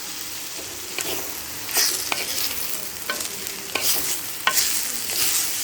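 Grated beetroot sizzling in coconut oil in a pan while a spoon stirs it, with a steady hiss and a sharp scrape or tap against the pan every second or so.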